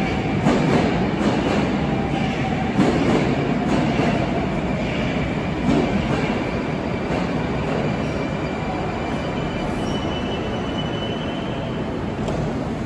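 Moscow Metro 81-760/761 'Oka' subway train pulling into the station and slowing along the platform: wheels clacking over rail joints a few times in the first seconds under a steady running noise, then a thin, high brake squeal near the end as it comes to a stop.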